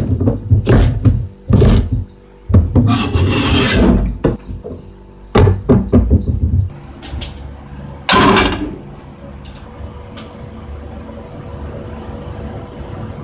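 Chef's knife chopping green beans on a plastic cutting board: quick knocks of the blade on the board, broken about three seconds in by a longer scraping rasp of the blade across the board. After another short scrape about eight seconds in, the chopping stops and only a quiet steady hum is left.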